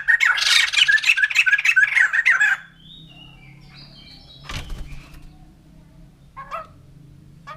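White-crested laughingthrush giving its loud, rapid cackling 'laughing' call, which breaks off abruptly about two and a half seconds in. Fainter scattered calls follow, with a short knock about halfway and one brief call near the end.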